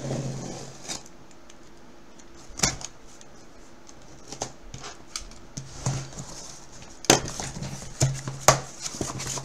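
Cardboard shipping case being handled on a wooden desk: scrapes, taps and knocks of cardboard, with a few sharper knocks, the loudest about seven seconds in.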